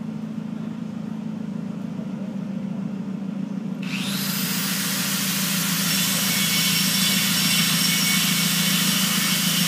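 Steady machinery hum. About four seconds in, a loud steady rushing noise starts abruptly and carries on.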